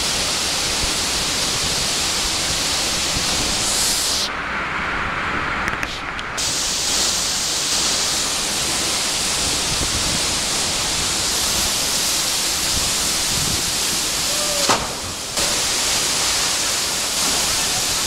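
Steady rush of a waterfall pouring into its plunge pool, an even wash of water noise that briefly turns duller twice.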